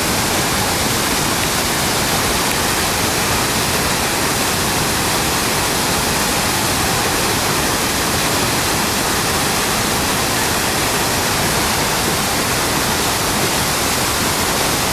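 Niagara Falls' falling water heard from right under the falls: a loud, steady rushing noise that fills every pitch and does not let up.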